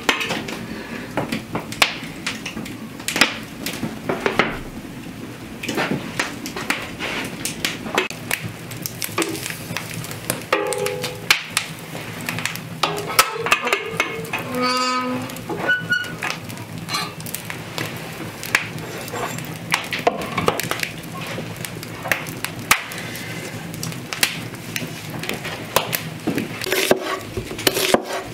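Kitchen handling sounds: a string of clicks, clinks and knocks from metal cookware and utensils being moved about, with a few brief ringing tones about halfway through.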